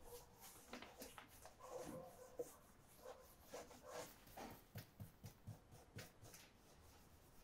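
Near silence, with faint scattered short scratches and taps.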